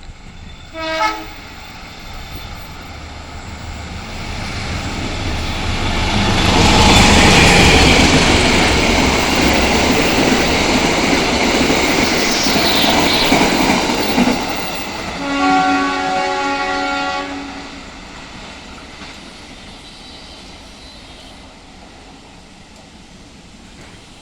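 Indonesian railway (KAI) train passing close by: a short horn blast about a second in, then the train's noise builds to a loud peak through the middle and fades, with a second, longer horn blast of about two seconds as it goes away.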